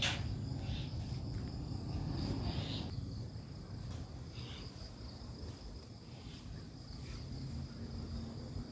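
Steady high-pitched drone of insects over a low outdoor rumble, with a few short high chirps and a sharp click right at the start.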